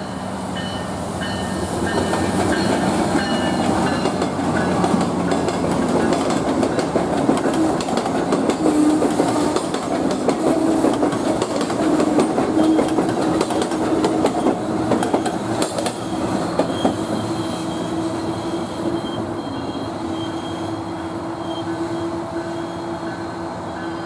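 MARC commuter train hauled by two MP36 diesel locomotives passing at speed, its multilevel coaches' wheels clicking rapidly over the rail joints. The sound builds in the first couple of seconds, stays loud with dense clicking, then fades over the last several seconds as the train moves away.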